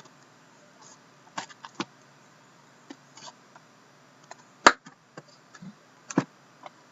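Shrink wrap being handled and pulled off a sealed trading card box: scattered plastic crinkles and light clicks. Two sharper clicks come in the second half, the first the loudest.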